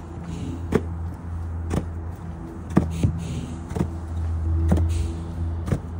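Low wind rumble on the microphone, with a sharp knock about once a second.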